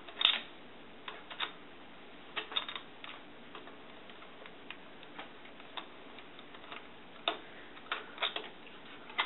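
Irregular small clicks and taps of a screwdriver working the screw of a 16mm film projector's lamp cover plate, sharpest just after the start and again in a few clusters near the end.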